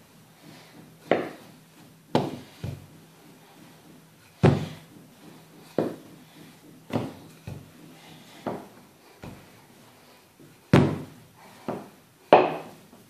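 Wooden rolling pin rolling out semolina flatbread dough on a hard countertop, knocking down onto the counter about once a second in irregular strokes.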